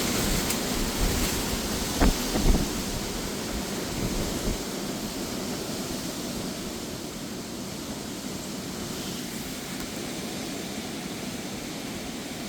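Gusty storm wind rushing, with wind buffeting the microphone and two sharp knocks about two seconds in. The gust eases after about four seconds and the rushing carries on more softly.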